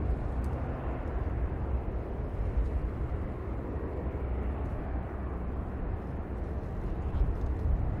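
Jet engines of a twin-engine airliner climbing away after takeoff: a steady, even roar with a deep rumble, with gusty wind buffeting the microphone.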